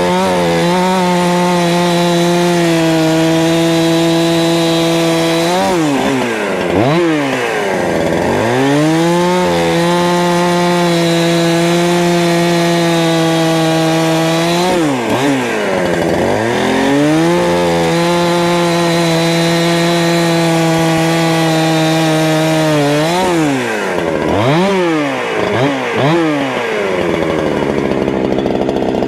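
Holzfforma G372XP 71cc two-stroke chainsaw cutting wood at full throttle, its engine note held steady for several seconds at a time. Three times the throttle comes off and the pitch drops and climbs back, with a few quick revs near the end.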